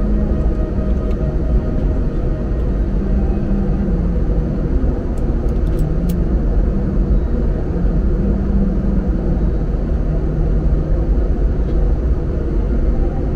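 Steady in-flight cabin noise of an airliner: a loud, even rumble of engines and rushing air, with a faint hum.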